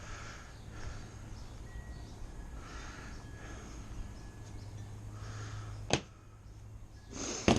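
Two sharp knocks, one about six seconds in and a louder one near the end, over a low steady hum.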